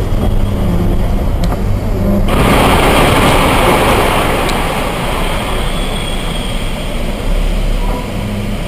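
Car cabin noise with a low engine hum on a wet road. About two seconds in, a loud rough crash noise starts suddenly and is strongest for a couple of seconds as a dump truck ahead slews sideways and crashes, then eases to a steadier noise with a faint knock or two.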